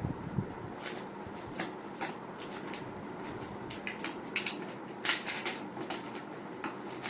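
Tablet packaging being opened by hand: a scatter of short scrapes, clicks and rustles at irregular intervals, thickest about four to five seconds in, over a steady low background hum.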